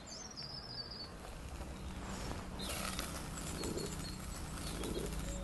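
Eggplant slices sizzling with fine crackles in hot olive oil in a stainless steel pan, the sizzle filling in and growing louder about halfway through as the pan is tossed.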